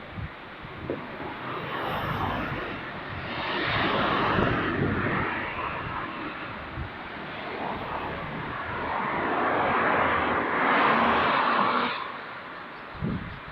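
Road vehicles driving past: a rush of tyre and engine noise that swells about four seconds in and again around ten to eleven seconds, then drops off sharply near the end.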